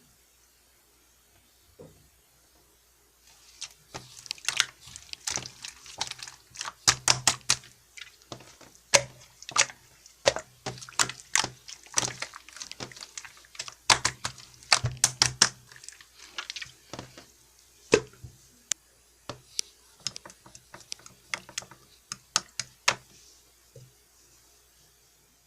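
Irregular quick clicks and taps, dense for about twelve seconds from a few seconds in, then sparser, stopping a couple of seconds before the end.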